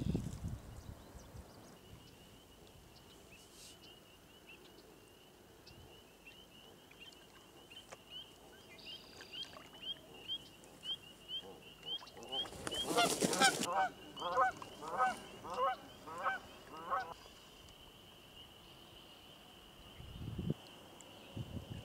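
Canada geese honking: a loud flurry of calls a little past halfway, then a run of about seven honks roughly half a second apart. A high, steady trill carries on behind them.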